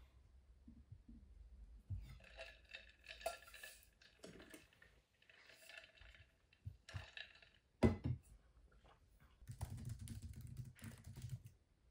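Quiet typing on a laptop keyboard, soft key clicks in short runs, with a single sharp knock about eight seconds in and a denser run of typing near the end.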